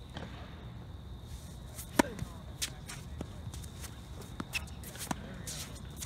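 Tennis ball knocks on a hard court: one sharp loud knock about two seconds in, then several lighter irregular taps, with short shoe scuffs near the end.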